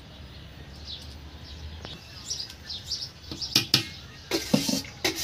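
Birds chirping in short high calls through the first half, then a cluster of sharp knocks and clicks near the end, over a low steady hum.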